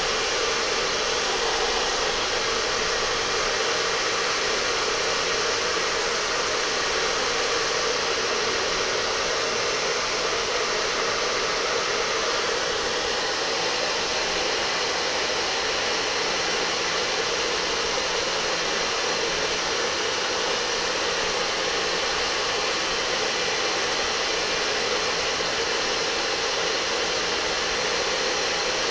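Steady, loud rush of strong blown air, with a long T-shirt flapping in the air stream.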